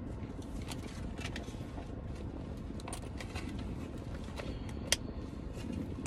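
Steady low rumble of an idling SUV heard from inside the cabin, with scattered small clicks and one sharp click about five seconds in.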